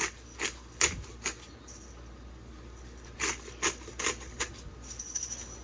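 Black pepper being dispensed from its container onto fish: two runs of four short, sharp rasping clicks, about two and a half a second, with a pause of about two seconds between them.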